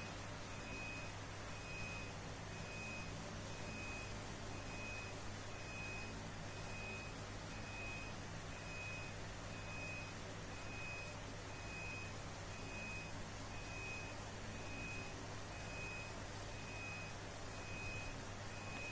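An electronic beeper sounding a single high tone about once a second, in the even on-off pattern of a vehicle reversing alarm, over a steady low hum.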